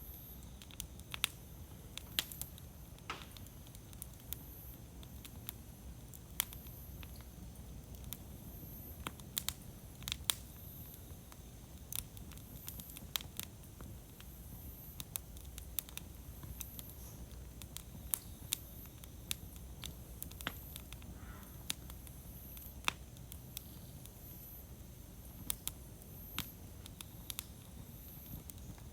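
Wood campfire crackling: sharp, irregular pops and snaps over a steady low background.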